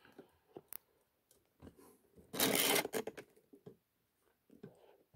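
Scattered small clicks of tweezers and a disassembled ASSA 6000 lock's pins and springs being handled on a parts tray, with one brief, louder rustling noise about two and a half seconds in.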